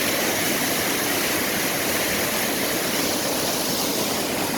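Waterfall crashing down close by, a steady, even rush of water noise.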